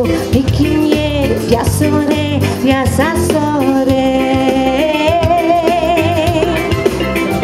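A woman singing live into a handheld microphone through a PA, holding long notes with vibrato, over amplified keyboard-led backing with a steady bass beat.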